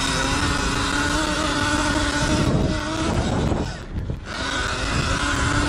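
Electric dirt bike's motor whining under throttle over the rumble of wind and knobby tyres on a sandy track. The whine climbs in pitch about two seconds in, drops away briefly around four seconds as the throttle is rolled off, then picks up again.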